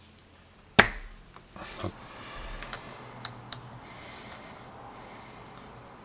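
Spring-loaded desoldering pump (solder sucker) snapping once about a second in as its plunger is released to suck molten solder off a pad, followed by a few small clicks.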